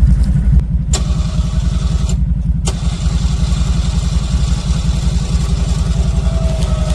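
ATV engine running steadily with a rapid low firing pulse, with two sharp clicks about one and two and a half seconds in.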